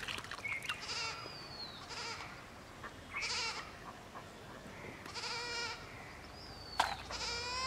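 A goat bleating repeatedly: about five short, wavering bleats a second or two apart, the last one the longest and loudest. A thin, high falling whistle comes twice in between, and there is a sharp click near the end.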